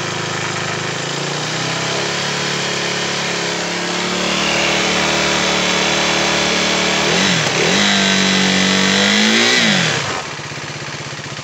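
KTM RC 390's single-cylinder engine revved after a coolant refill, to get the fresh coolant drawn through the radiator. It is held at raised revs for several seconds, dips about seven seconds in, is blipped up again, then drops back to idle near the end.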